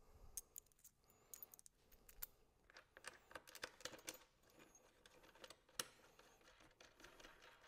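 Faint, scattered small clicks and light taps of metal hardware being handled, as coupler nuts are threaded by hand onto bolts.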